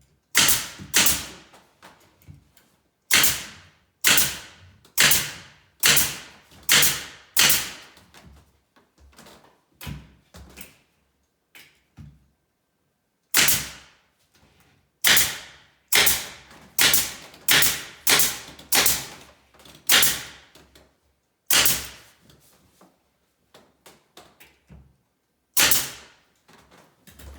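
A nail gun firing staples or pins one after another, about one a second with a short pause about halfway, each shot a sharp crack with a brief hiss. It is fastening the cabinet's face frame into a 1/2 inch side.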